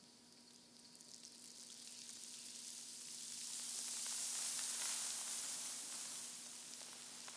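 A high, even hiss, like rain or sizzling, that swells to a peak about four to five seconds in and then eases off, over a faint steady hum.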